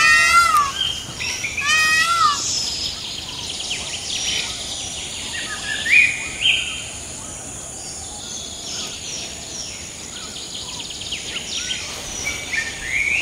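Several birds calling: a repeated arching whistled call twice in the first couple of seconds, then a mix of short chirps and rising whistled notes, with one louder call about halfway through.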